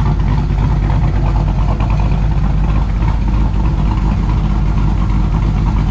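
Dodge Dakota's cammed engine idling steadily, heard at the rear tailpipes through an exhaust with resonators mounted mid-pipe, which knock the edge off its sound.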